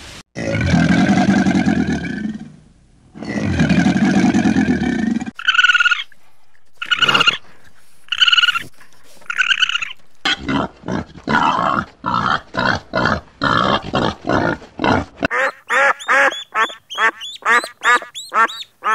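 A string of different animal calls: two long low calls, then four separate higher calls, then a fast run of short repeated calls that get higher-pitched near the end.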